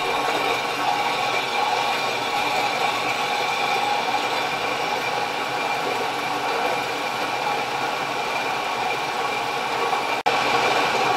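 Vertical milling machine's spindle motor running steadily with an edge finder in the spindle, a constant mechanical hum and whir, broken by a momentary dropout near the end.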